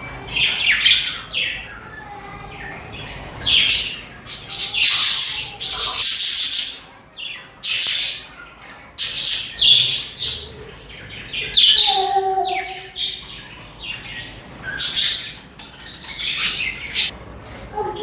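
Budgerigars (budgies) chirping and chattering in quick high bursts every second or so.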